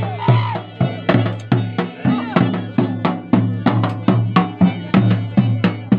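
Dance music: a dhol drum beaten in a steady rhythm of about three strokes a second, each stroke ringing low, with a wavering melody over it in the first second or so.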